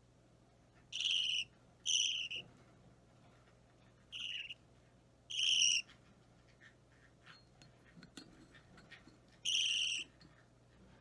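Budgerigar chick about three weeks old giving short begging calls at hand-feeding time: five calls of about half a second each, two close together near the start, two more a few seconds later and one near the end. Faint clicks come in between the calls.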